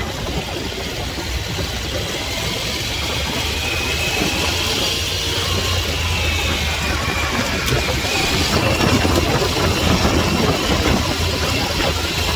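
Harley-Davidson Pan America's Revolution Max 1250 V-twin running at low speed while riding over sand, with a high whine that rises and falls in pitch midway and a steady rush of wind and tyre noise. It grows slightly louder as the bike picks up pace.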